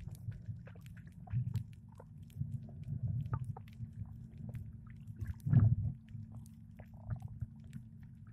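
Muffled underwater sound as picked up by a camera under the surface: a steady low rumble with many scattered sharp clicks and crackles, and one louder swell of noise about five and a half seconds in.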